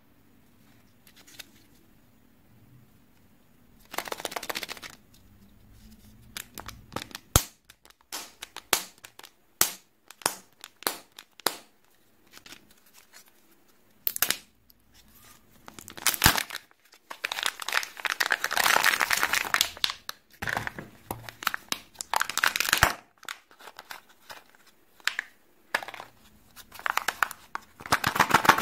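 Kinder Joy egg's thin plastic wrapper and peel-off lid crinkling and tearing as fingers peel them, in irregular bursts with sharp plastic clicks between them; the longest stretch of crinkling comes about two thirds of the way through.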